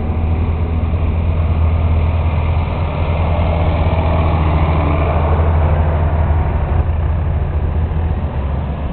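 Farm tractor engine running steadily: a loud, deep, even drone.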